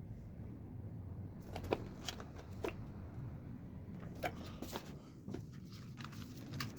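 Hands handling computer parts and their packaging: a string of irregular light clicks and rustles starting about a second and a half in, over a steady low hum.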